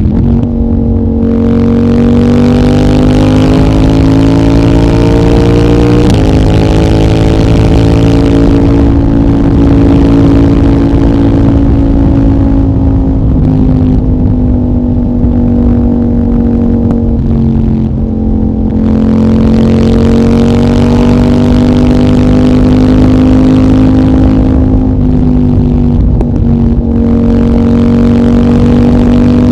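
CFMOTO 800NK's parallel-twin engine, breathing through a decat pipe and the stock muffler, pulling hard with its note rising. Its pitch drops sharply at upshifts about 6 seconds in and again near the end, and it eases off and sinks through the middle before accelerating again.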